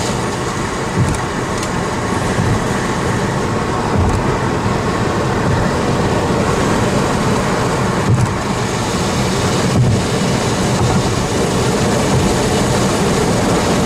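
Steady road and engine noise inside a moving car, with a few brief thumps.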